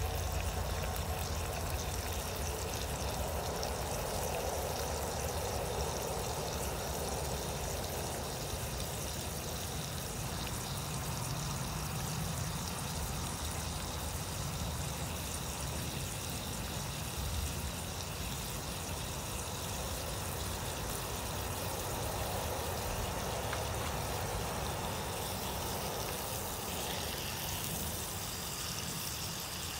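Bacon sizzling in a non-stick frying pan over a gas-canister camping stove: a steady hiss.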